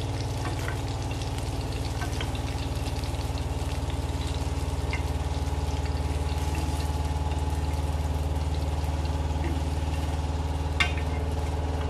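Steady low motor hum throughout, with sparse faint crackles of hot oil still sizzling on the dosa tawa as the fried fish is lifted off. One sharp click near the end.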